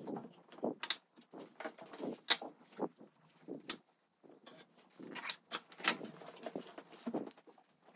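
Irregular light knocks and clicks of things being handled and set down in a kitchen, a dozen or so in a loose, uneven string, one sharper knock a little over two seconds in.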